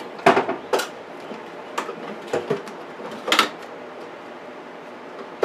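Metal hand tools clanking as wrenches are picked through on a workbench: about half a dozen sharp, separate clanks in the first few seconds, then it goes quiet.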